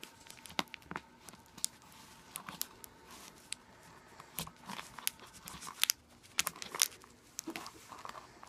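A spoon digging and scraping around in a tub of drink powder, with irregular clicks and crunches as it knocks against the tub.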